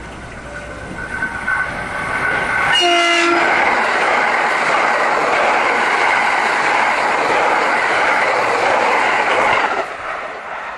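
A 681/683-series electric limited express train sounds a short horn blast about three seconds in, then passes at speed with loud rushing wheel and air noise that falls away near the end.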